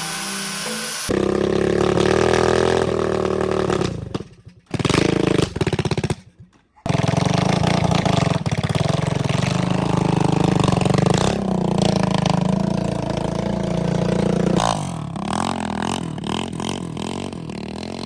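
A motor running steadily, cutting out twice briefly near the middle.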